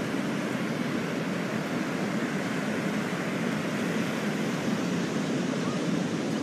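Steady, even rushing background noise with no firework bangs or pops.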